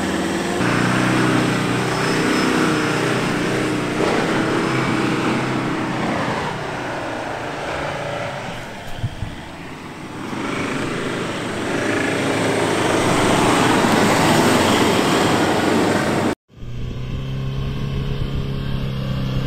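Ford Endeavour SUV's diesel engine running hard as it drives and slides across a sand dune, easing off and then building up again. Near the end the sound cuts out for an instant and another 4x4's engine takes over with a steady hum.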